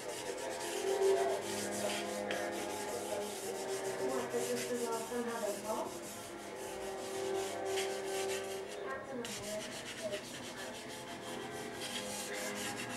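Plastic fondant smoother rubbing over the fondant on the sides of a cake, a run of many short scraping strokes.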